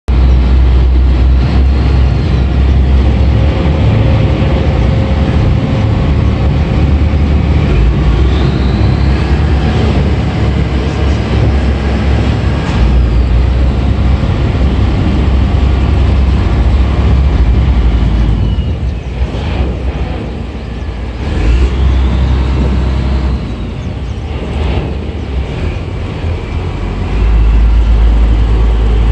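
Strong wind buffeting a phone's microphone on a boat underway: a loud low rumble that surges and drops in gusts, easing for a while about 18 seconds in and coming back strongly near the end.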